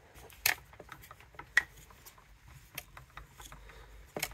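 Light metallic clicks and small taps from an Allen key working the cylinder bolts of a Husqvarna 372XP chainsaw, loosening them a few turns, with three sharper clicks spread through it.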